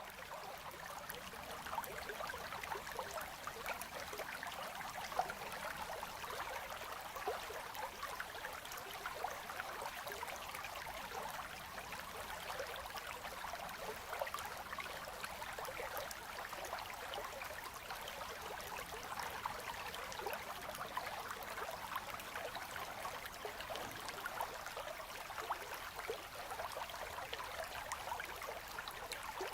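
Slow river current flowing steadily over shallows between ice, with many small gurgles and splashes.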